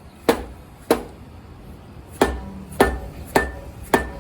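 Mallet blows on a stuck part of a Subaru 2.5-litre engine during teardown. Six sharp strikes: two within the first second, then after a pause four more about half a second apart. The later ones carry a slight metallic ring.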